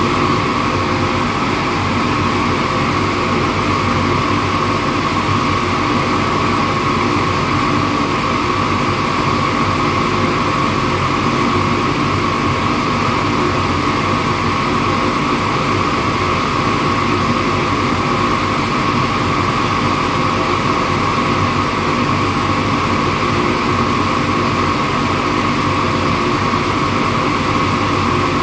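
Trane CVHF centrifugal chiller compressor running steadily at part load, inlet guide vanes about 30% open, a steady high whine over a broad machine noise with no pulsing.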